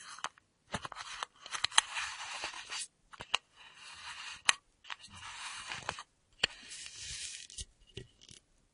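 Screw cap of a full metal flask being twisted, the threads scraping in four short turns of about a second each, with sharp clicks between them.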